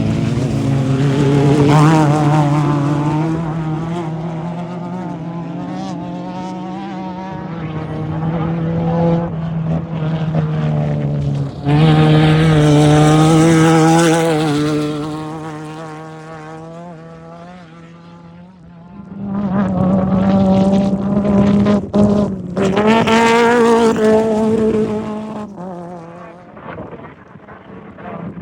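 Off-road race vehicles going by one after another at racing speed, their engines running hard with the pitch rising and falling with the throttle. The loudest passes come about twelve seconds in and again about twenty seconds in, with a lull between them, and the sound fades near the end.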